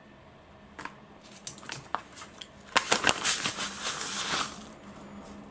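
A packet of dry kisel mix being handled and crinkling. There are a few light clicks at first, then a dense burst of crinkling from about three seconds in.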